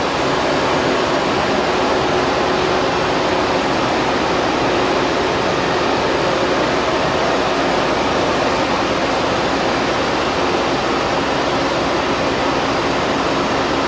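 Hurco BMC-30/SS CNC vertical machining center running under power: a steady, even rushing noise with a faint steady tone through it.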